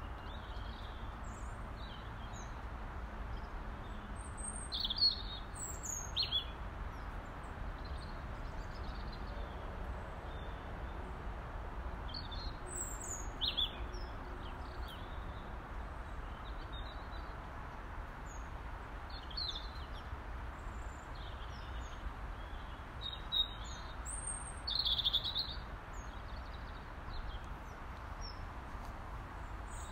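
Robin singing: short, thin, high-pitched notes in scattered phrases with pauses between them, over a steady low background rumble.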